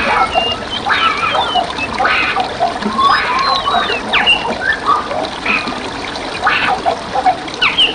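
Mixed birdsong over running water: harsh calls repeating roughly once a second, with short whistled chirps and slurs in between.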